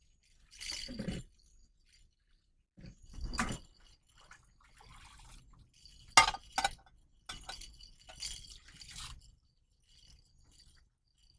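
Several separate clinks and knocks of objects being handled, with pauses between them; the sharpest are two quick clicks about six seconds in.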